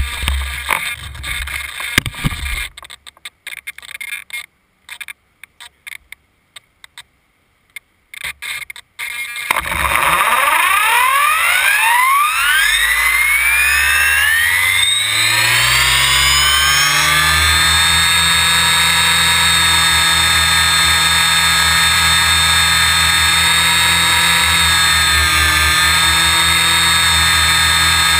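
Knocks and handling sounds with short silences, then about ten seconds in an RC helicopter's motor and rotor spool up, the whine rising in pitch for several seconds before settling into a steady high whine at flying speed.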